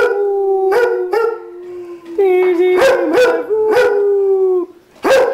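Greyhound howling ('singing') in two long, drawn-out notes, the first about two seconds and the second about two and a half, with short sharp sounds between them and a brief pause near the end.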